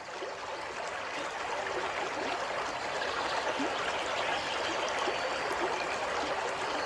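A river's water flowing and gurgling over stones, a steady rushing with small splashes.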